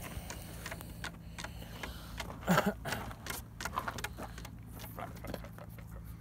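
Handling noise as gear is rummaged through in a tackle bag: a run of small clicks and rattles, with one brief louder sound about two and a half seconds in.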